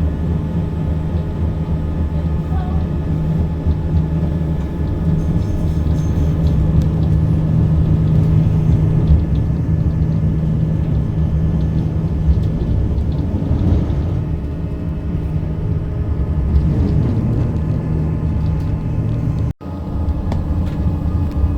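Steady rumble and low hum of a narrow-gauge electric train running along the track, heard from inside the carriage. The sound drops out for an instant near the end.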